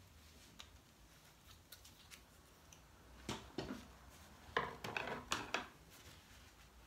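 Short clicks and scrapes of painting tools and supplies being handled, in two brief clusters a little past the middle, with a few faint ticks before them.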